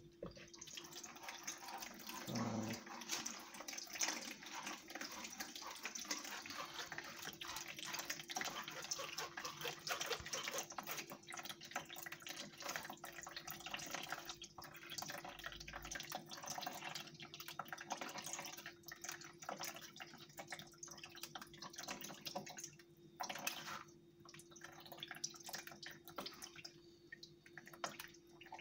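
Blended fruit juice trickling and dripping through a fine metal mesh sieve into a plastic bowl, with a metal spoon scraping and pressing the pulp against the mesh in many small clicks and scrapes. A faint steady hum sits underneath.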